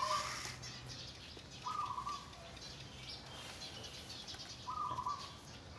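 Baby macaque giving short, high squeaking calls, three of them about two and a half seconds apart, with faint higher chirps in between.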